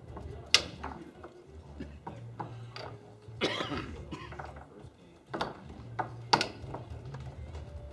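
Foosball on a Tornado table: a few sharp clacks of the ball struck by the plastic foosmen and knocking against the table, the loudest about half a second in, with lighter clicks and rattles of the steel rods between them.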